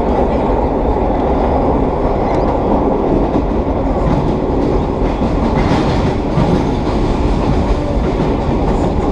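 1930s R1/9 subway cars running at speed through a tunnel: a steady, heavy rumble of wheels on rail with the growl of the cars' straight-cut gears, and a harsher patch about six seconds in.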